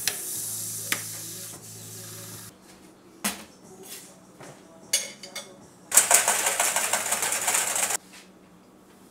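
Rancilio espresso machine's steam wand hissing over a low machine hum as milk is steamed, in two stretches: about two and a half seconds at the start, then a louder, fluttering burst of about two seconds near the end. A couple of sharp clicks fall in between.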